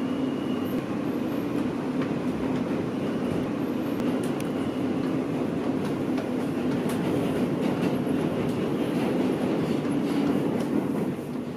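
New York City subway car running, heard from inside the car: a steady rumble of wheels on the track, with a faint high whine that comes and goes.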